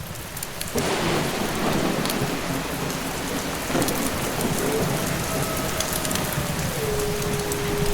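Heavy rain starts suddenly about a second in, over a low rumble of thunder. Past the middle, a single long wolf howl holds one pitch, then slides lower near the end and carries on.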